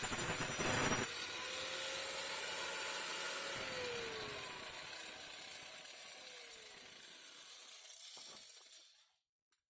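Angle grinder fitted with a wood saw blade, running and cutting, with a louder cut in the first second. Its pitch dips in places, and near the end it winds down and stops.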